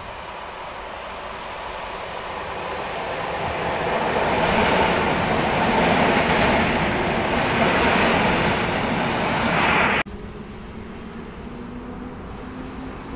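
EN57-AKW electric multiple unit approaching and running alongside the platform, its running noise growing louder over about four seconds and then holding. About ten seconds in it cuts off abruptly to a quieter EU07 electric locomotive approaching, with a low hum rising in pitch in steps.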